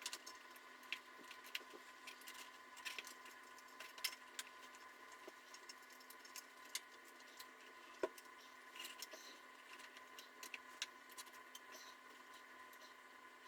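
Scattered light clicks and taps of small metal parts and hand tools being handled during carburetor reassembly, over a faint steady hum.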